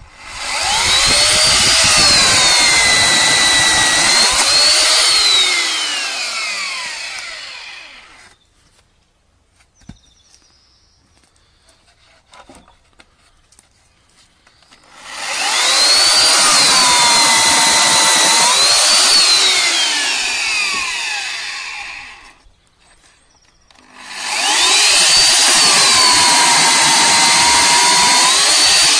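Corded electric chainsaw cutting a log in three runs, with quiet gaps about 8 and 22 seconds in. Each run starts with a rising whine, sags lower in pitch while the chain is in the wood, picks up again briefly, then winds down.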